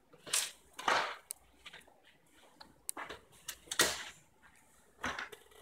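Curtain-track parts being handled and fitted: a handful of short scrapes and clicks spaced about a second apart, the loudest near the middle.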